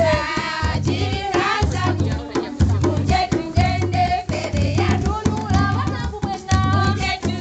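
A group of women singing together over large wooden hand drums beating a steady rhythm.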